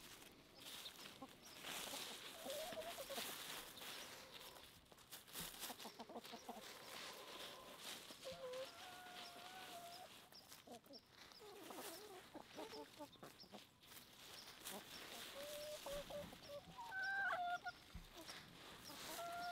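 Backyard chickens clucking, with scattered short pitched calls and many light clicks; one louder call comes near the end.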